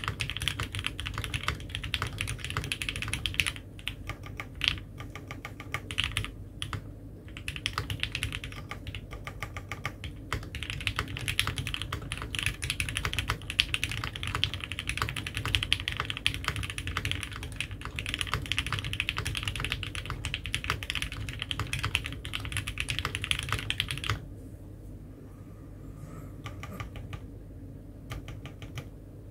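Typing on a Mode 65 custom mechanical keyboard with lubed H1 switches, a POM plate and GMK keycaps: a steady run of keystrokes. Near the end it drops to a few separate presses on the keys to the right.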